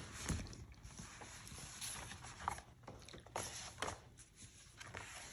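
Faint, scattered clicks and rustles of a box set's DVDs and packaging being handled.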